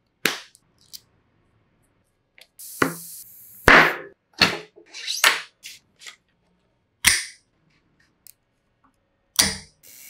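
Bicycle build sounds from cable routing and parts being handled: about ten sharp clicks and snaps with short swishes, separated by silence, the loudest a little before halfway.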